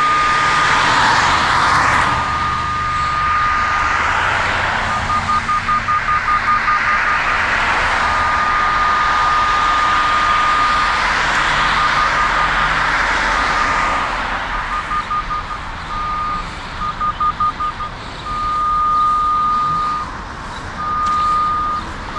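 Cable and pipe locator receiver (RD8200) sounding its signal tone, a single high beep that changes between a steady note and rapid pulsing at about four a second as the receiver is swept along the buried water main in guidance mode. Passing road traffic is heard beneath it.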